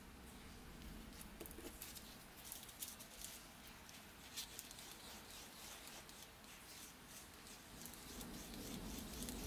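A wooden stick stirring two-part epoxy on a sheet of sandpaper, scraping and ticking faintly against the paper in quick irregular strokes.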